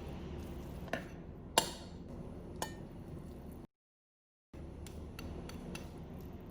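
Light clinks of kitchenware, three sharp ones in the first half, the loudest about a second and a half in, over a steady low room hum. The sound cuts out completely for a moment past the middle, then a few fainter taps follow.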